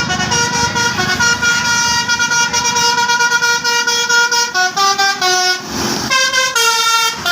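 Basuri telolet bus horn, a multi-trumpet musical air horn, playing a tune: a loud chord held for about four seconds, then quick stepped note changes, a brief hiss of noise about six seconds in, and another held chord near the end.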